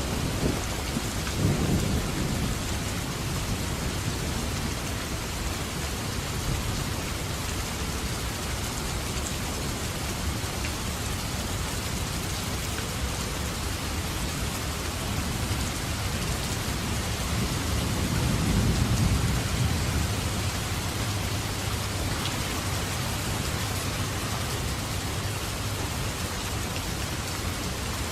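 Steady rain falling during a thunderstorm, with low rolls of thunder at the start and again about two-thirds of the way through.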